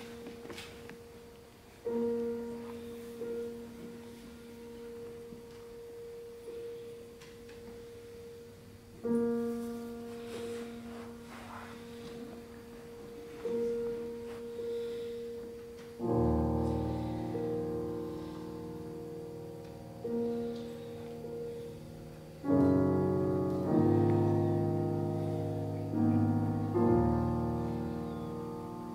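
Grand piano playing classical music: a quiet, sparse passage with one note struck again and again, then fuller chords with deep bass notes from just past halfway, louder still in the last part.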